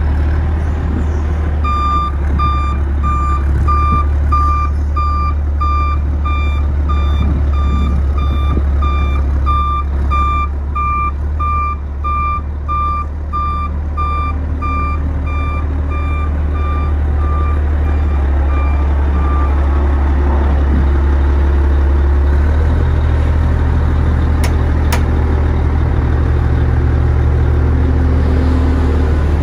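Toro 50D underground dump truck's diesel engine running, with its reversing alarm beeping steadily about twice a second while the truck backs up. The alarm stops some two-thirds of the way through, and the engine note rises a little soon after.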